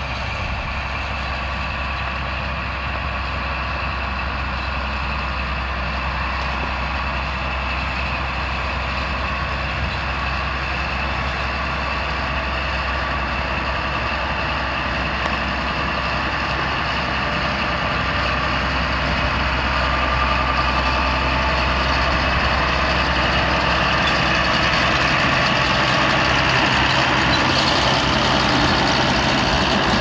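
John Deere 4055 tractor's six-cylinder turbo diesel running steadily with a round baler in tow, getting gradually louder as it comes closer.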